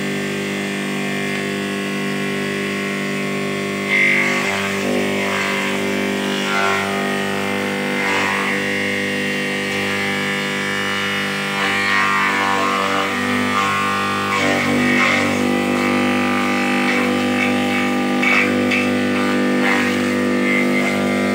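Homemade forage chopper driven by an electric motor salvaged from a used Sanyo water pump, running with a steady hum. From about four seconds in, leaves pushed into the feed chute are cut by the spinning blade, adding irregular bursts of cutting noise over the hum.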